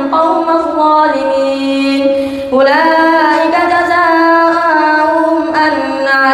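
A boy imam chanting Quran recitation in prayer, in long melodic held notes with ornamented turns. A new phrase begins about two and a half seconds in and another near the end.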